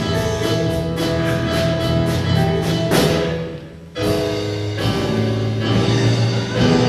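Instrumental music from an orchestra with drums, over a steady ticking cymbal beat. It swells about three seconds in, drops away briefly, then comes back with held chords.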